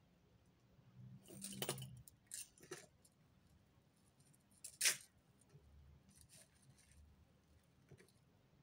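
Metal costume-jewellery chain clinking faintly as hands untangle a necklace, with one sharper clink about five seconds in.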